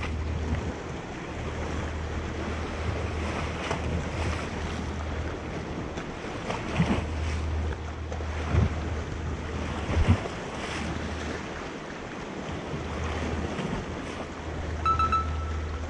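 Sea waves washing against the shore rocks, with wind buffeting the microphone as a low rumble that comes and goes. A few dull thumps in the middle, and a short high tone near the end.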